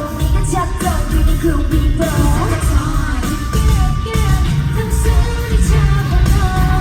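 K-pop girl group singing live over a heavy bass-driven backing track, loud through arena speakers.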